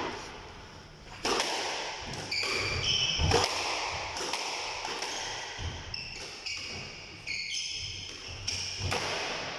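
Squash rally: several sharp cracks of the ball struck by racket and hitting the walls, with short high squeaks of court shoes on the floor in between.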